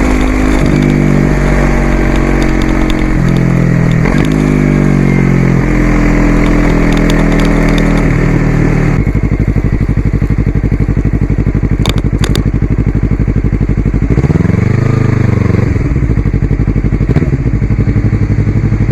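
Yamaha YZF-R3 parallel-twin engine through an aftermarket exhaust, pulling through the gears: the pitch climbs and drops back at each quick upshift, three or four times. It then settles to a lower, steady run near idle, with one short blip of the throttle near the end.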